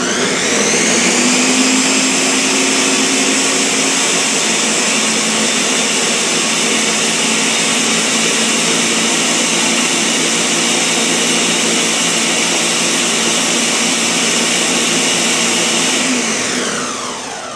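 Countertop blender running at full speed, blending frozen strawberries with skim milk and Greek yogurt into a smoothie. The motor pitch rises and settles in the first couple of seconds, holds steady, then winds down as it is switched off near the end.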